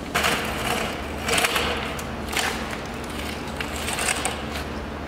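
Crumpling and rustling of a large sheet of thin foam packing wrap being handled, in several short bursts, over a steady low hum.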